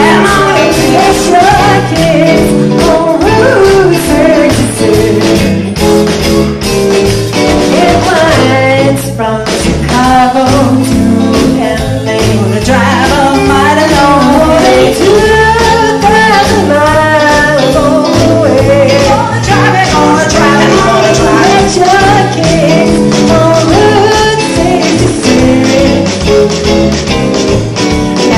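Live band playing a rock-and-roll number: women's vocals over drums and electric bass.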